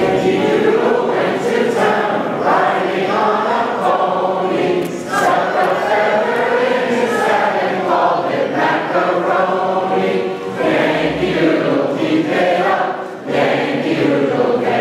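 A choir singing in phrases, with short breaks between lines about 5, 10 and 13 seconds in.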